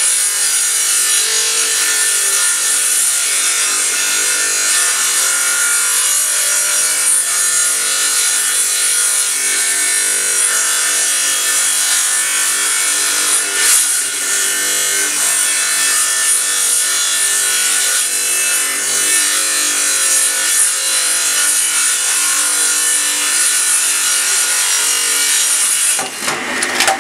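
Table saw ripping a long cut through a large sheet of board: a loud, steady, high-pitched cutting noise. About a second before the end the blade clears the board and the cutting noise drops away.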